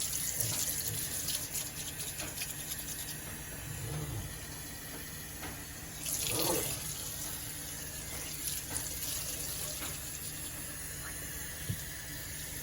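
Kitchen faucet water running steadily into a sink, briefly louder about six seconds in.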